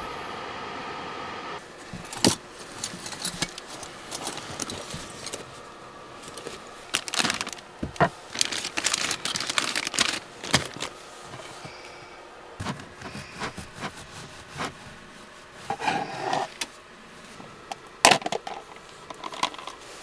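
Irregular clicks, knocks and rattles of small hard objects being handled, busiest in the middle, with a louder knock near the end; a steady hum cuts off shortly after the start.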